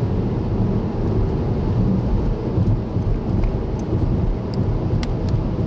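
Thunderstorm's low, steady rumbling roar, with a few faint ticks near the end; it cuts off suddenly.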